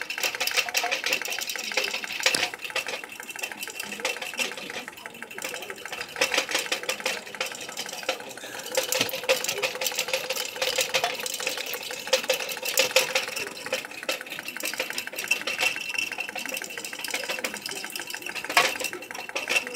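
Homemade Stirling engine with a metal displacer cut from a can, running steadily with a fast, even mechanical clatter.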